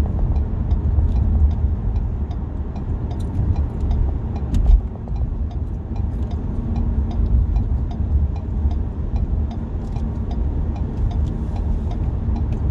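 Steady road noise inside a moving car's cabin at highway speed: a low rumble of tyres and engine, with one brief thump a little under five seconds in.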